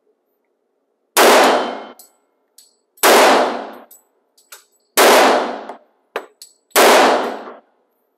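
Four unsuppressed shots from a full-size .45 ACP pistol in an indoor range, about two seconds apart, each with a short echoing tail, and light clinks between the shots.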